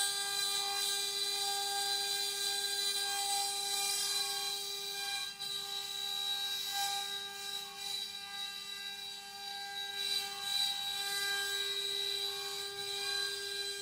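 CNC wood-carving machine's spindle running with a steady high whine and a hiss of cutting over it.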